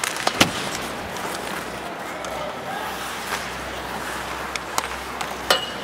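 Ice hockey game sound: a steady crowd noise filling the arena, with a few sharp clacks of sticks and puck, the loudest about half a second in and two more near the end.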